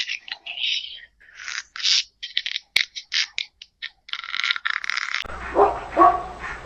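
Crisp crunching bites of an animal eating, in short separate bursts. About five seconds in, the sound changes abruptly to a dog giving three short, high barks.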